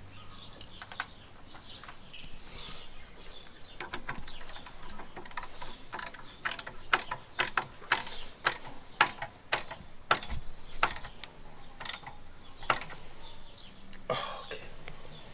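Hand ratchet wrench clicking in short runs of sharp clicks, a few a second, as bolts on the motorcycle's exhaust and footpeg bracket are tightened.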